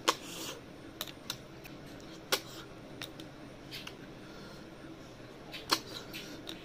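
Close-up eating sounds of river snails: sharp sucking clicks and short slurps as the snail meat is sucked out of the shells, coming every second or so at uneven spacing. The loudest clicks come right at the start and near the end.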